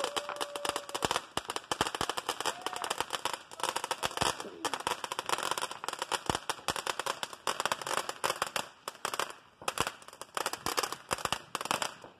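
Handheld crackling firework fountain spraying sparks, a dense irregular run of sharp crackles that keeps going for about twelve seconds and dies out near the end.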